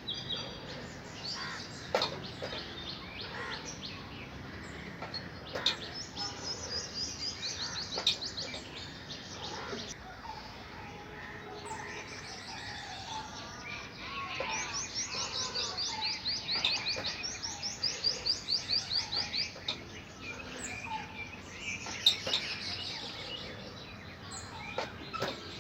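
Wild songbirds chirping and singing, with long runs of fast repeated chirps about six seconds in and again from about fourteen to nineteen seconds. A few sharp clicks or knocks come through now and then, the loudest a little after twenty seconds.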